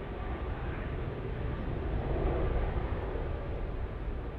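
Jet engine noise of an Airbus A380 airliner: a steady rumble that swells slightly about two seconds in, then eases off.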